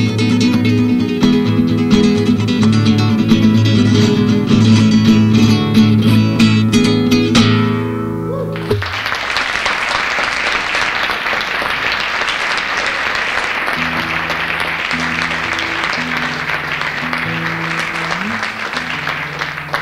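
Solo acoustic guitar playing fast flamenco, the piece ending abruptly about nine seconds in. Live audience applause then runs on steadily after the final chord.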